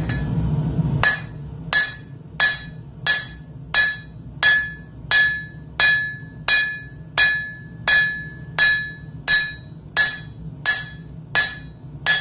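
Blacksmith's hand hammer striking hot steel on an anvil in a steady rhythm, about three blows every two seconds, each with a short metallic ring. It is drawing out a taper on a round bar, squaring it up for a hammer eye punch or drift. A steady low hum stops about a second in, just before the blows begin.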